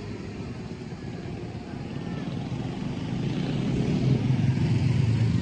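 Motorcycle engine running steadily while riding, a low drone that grows louder from about three seconds in.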